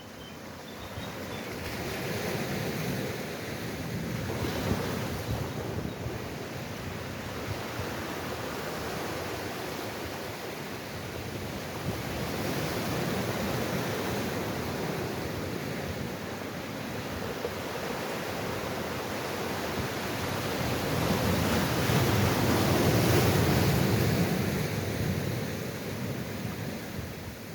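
Sea waves washing onto the shore as a steady rushing surf that swells and falls back in slow surges, the biggest swell coming about three-quarters of the way through.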